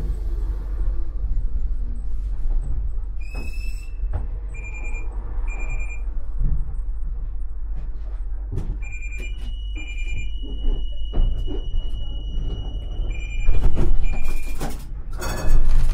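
Inside the cab of a ČKD Tatra T6A5 tram, a low steady hum with short electronic beeps in pairs, a brief rising tone and a long steady tone of about five seconds. Two loud noisy bursts of clatter come near the end.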